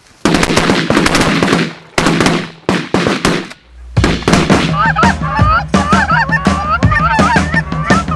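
A flock of geese honking, many overlapping calls from about four seconds in, over background music with a steady bass. Before that, a loud, noisy stretch broken by sharp hits.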